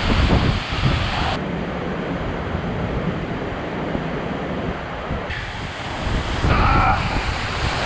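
Ngardmau Waterfall pouring into its pool: a steady rushing noise of falling water, with wind and spray buffeting the microphone.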